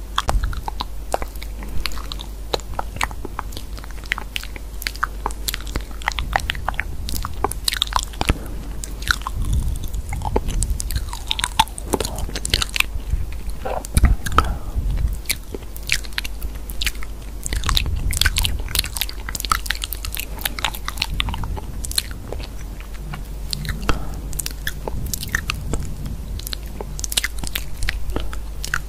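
Close-miked crunching and crackling: dense, irregular sharp clicks over a steady low hum, like chewing or crunching sounds.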